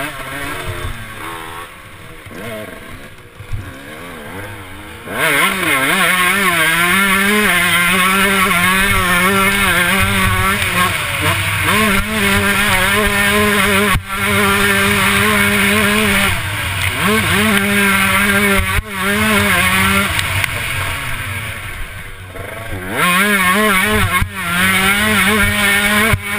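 Motocross bike's engine heard up close from the bike, quieter and low in revs at first, then opened up about five seconds in and held at high revs under hard throttle. The revs drop briefly a few times and climb again near the end.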